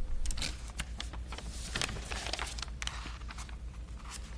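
Room noise: scattered small clicks and rustles over a steady low hum.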